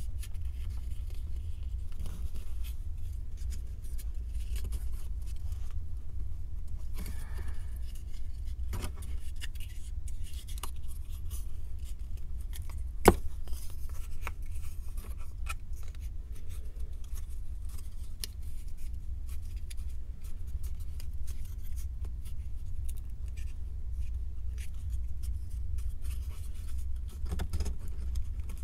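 Small 3D puzzle pieces being handled and fitted together by hand: scattered light clicks, taps and scrapes, with one sharper click about halfway through, over a steady low hum.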